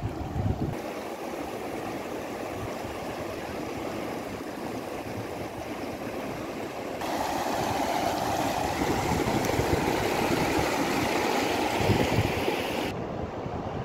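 A mountain stream running over stones into a lake: a steady rushing of water. The sound changes abruptly about a second in, grows louder about seven seconds in, and drops back near the end.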